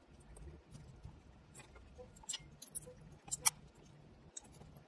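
Faint, scattered small clicks and taps of a precision screwdriver and tweezers on the metal frame and screws of an open iPhone 6 as screws are taken out, with the strongest click about three and a half seconds in.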